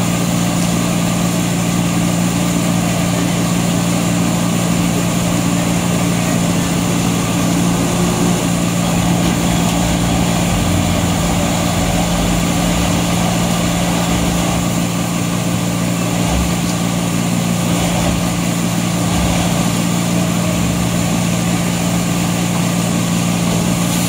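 Diesel engine of an ABJZ40C concrete mixer pump running steadily at constant speed while the machine mixes a batch.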